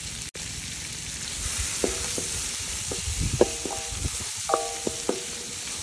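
Onion, garlic cloves and green and red chillies sizzling in butter in a karahi as they are stirred, with short ringing scrapes against the pan every second or so.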